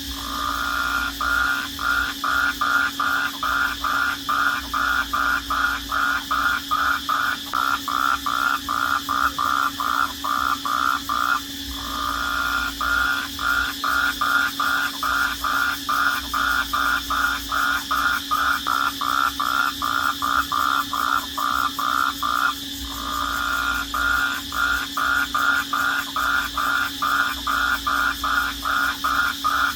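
Night chorus: crickets trilling steadily and high, under a lower rhythmic call that pulses two to three times a second. Twice the pulsing runs together into one unbroken call lasting about a second.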